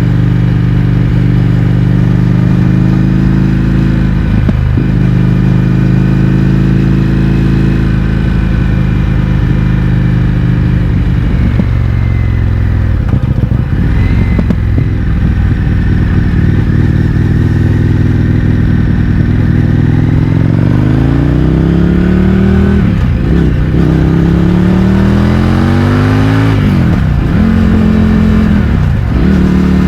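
Indian FTR 1200's V-twin through Akrapovič exhausts with the baffles removed, running at a steady cruise. In the second half it accelerates with rising revs, and the pitch drops sharply three times as it shifts up through the gears.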